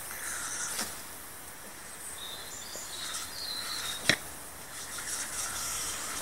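Thin jet of water running from a garden hose nozzle onto pavement as a small dog laps and mouths at it, with a steady hiss. Three sharp clicks, the loudest about four seconds in.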